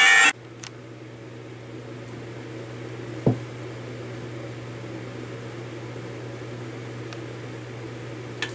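A loud, many-toned sound cuts off suddenly just after the start. A steady low hum with faint hiss is left, broken once about three seconds in by a single short knock.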